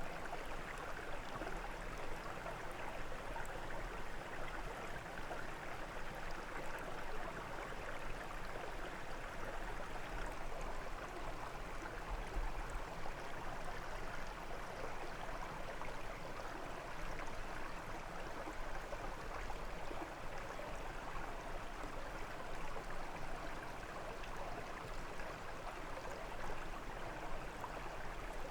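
A brook running: water burbling and splashing over stones in a steady, unbroken rush.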